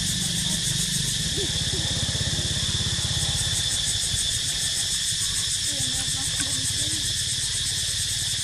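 Steady insect chorus, a high buzz with a fine pulsing, over a steady low rumble with a rapid flutter.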